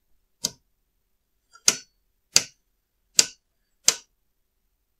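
Front-panel switches on a Unaohm G421E analog oscilloscope clicking as they are operated: five sharp, separate clicks at uneven spacing.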